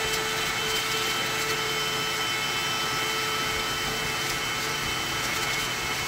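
Shop vac running steadily with a constant whine, its nozzle sucking up loose dirt and debris from around a car's fuel pump access opening.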